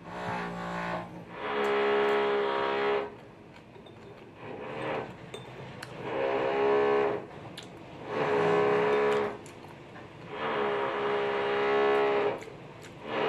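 Background music: long held notes that swell and fade in four phrases, with a few faint clicks between them.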